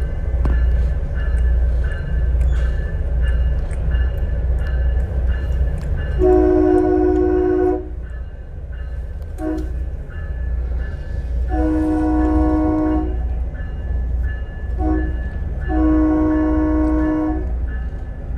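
TriMet WES commuter train's horn sounding five blasts (long, short, long, short, long), each long blast about a second and a half, over the steady low rumble of the train running.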